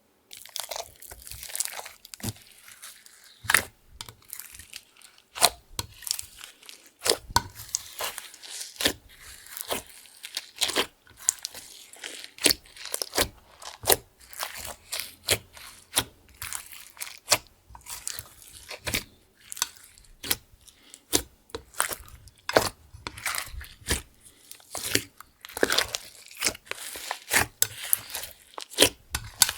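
Slime being kneaded and stretched by hand, giving a dense, irregular run of sticky pops, clicks and crackles.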